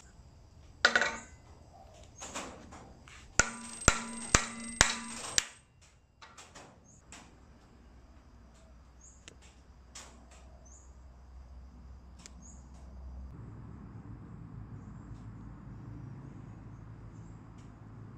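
A mallet striking a glued wooden test block clamped in a metal bench vise until the block splits: one hard hit about a second in, a lighter one, then four quick sharp hits with a ringing tone under them. Afterwards only faint clicks of the broken pieces being handled.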